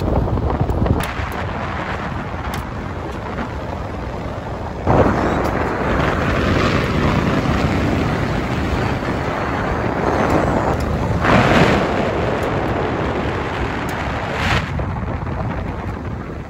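Wind buffeting the microphone out of a moving car's open window over a steady rumble of tyres on a gravel road; the wind noise swells in sudden gusts several times.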